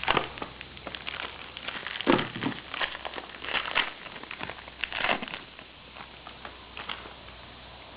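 Packaging of trading card packs crinkling and rustling in irregular bursts as the box and packs are handled and opened.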